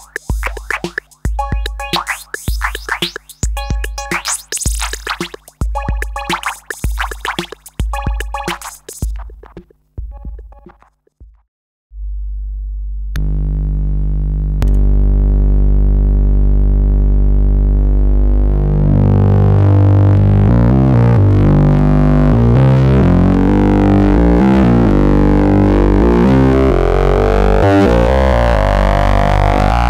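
Analog synthesizer patched through the River Dendrites multimode filter: a rhythmic sequence of short, plucky notes fades out about ten seconds in. After a brief pause a loud, sustained sawtooth drone starts, jumps louder a couple of seconds later, and then swirls and sweeps as the filter is run in its one-pole low-pass-plus-phaser mode with overdrive and its frequency knob is turned.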